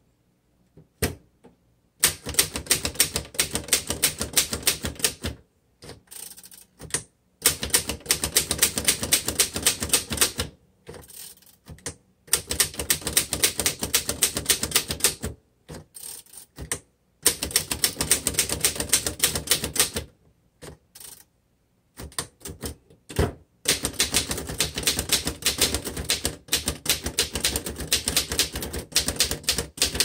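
A 1924 Royal 10 manual upright typewriter being typed on, its keys and type bars clacking rapidly. The typing comes in about five runs of a few seconds each, with short pauses between them.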